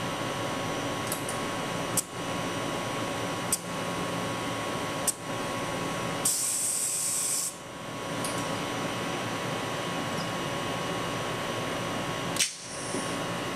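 Fiber laser welding station running with a steady machine hum, broken by four sharp clicks. About six seconds in comes a high hiss lasting about a second and a half.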